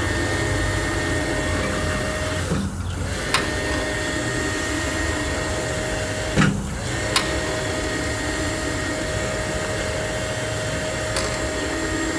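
Electric pump of a Ryujin water-weight system running steadily with a whine, filling the machine's tank with water to add weight during the lifter's reps. The hum drops out briefly twice.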